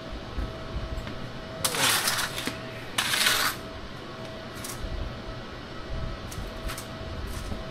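Two short bursts of rustling, scraping noise about two and three seconds in, with scattered light clicks and knocks, over a faint steady hum.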